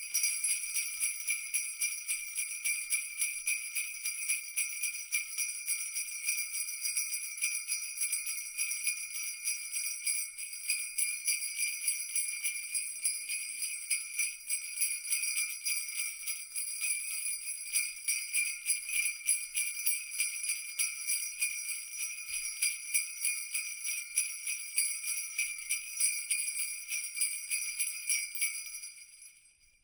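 Sleigh bells jingling continuously in a quick, steady shaking rhythm, fading out near the end.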